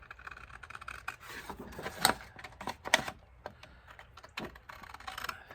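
Scissors cutting a strip of cardstock: a run of small crisp clicks and rustling, with a few sharper snaps about two, three and four and a half seconds in.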